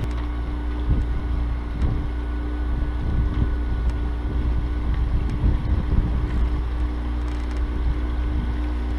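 Sailing catamaran's motor running steadily at low speed, with a constant hum, and wind rumbling on the microphone.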